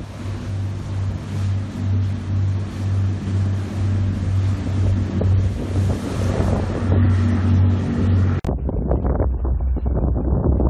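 Wind buffeting the microphone over a steady low engine drone and rushing water as a pilot boat speeds alongside a ship. About eight seconds in the sound cuts abruptly to a lower hum with wind gusts.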